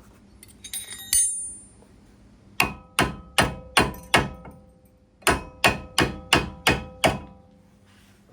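Hammer striking a metal brake part: two quick runs of about six ringing blows each, a little over two blows a second, with a short pause between them. A light metallic clink about a second in comes before the blows.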